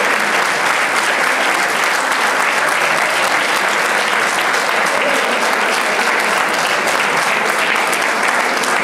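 Crowd applauding steadily: many hands clapping together in a dense, continuous patter that neither builds nor fades.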